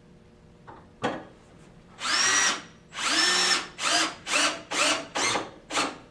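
Power drill driving bolts into an aluminium chaise lounge frame: two half-second runs, then five short trigger pulses as the bolt is snugged down. The motor spins up in pitch at the start of each run, and a single click comes about a second in.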